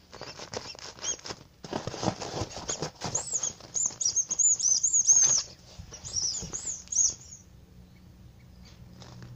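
Rapid fingernail tapping and scratching on an object, dense and uneven. Short high-pitched squeaky chirps come through in the middle. It dies away to faint room hum about three-quarters of the way through.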